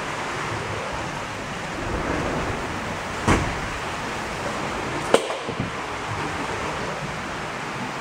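Steady rushing and bubbling of water in aerated koi tanks, with two short knocks about three and five seconds in.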